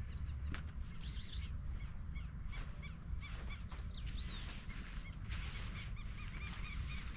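Birds calling: many short chirps repeating throughout, over a steady low rumble.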